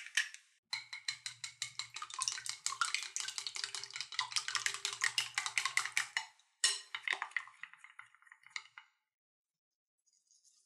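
Eggs being beaten in a bowl: a rapid, even clicking of the utensil against the bowl, several strokes a second, for about five seconds, then a shorter second round after a brief pause.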